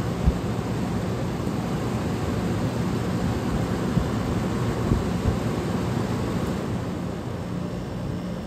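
Vintage room air conditioner running: steady fan and airflow noise over a low compressor hum, with a few brief knocks.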